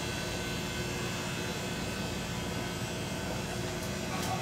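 Steady mechanical hum with a background hiss, and a faint knock near the end.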